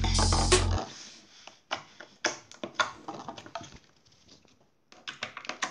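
Intro music with a drum beat that cuts off under a second in, followed by slime being squeezed and poked by hand, giving irregular wet clicks and crackles.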